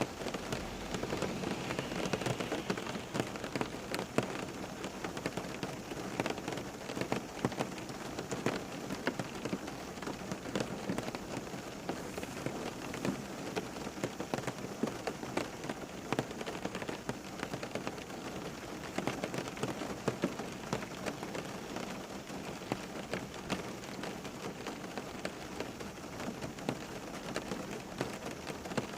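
Steady rain falling on a surface, an even hiss dense with the patter of individual drops.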